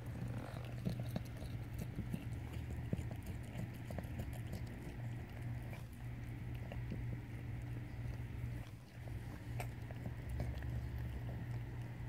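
Tortoiseshell mother cat licking her newborn kitten clean: a run of small, irregular wet clicks and smacks over a steady low hum.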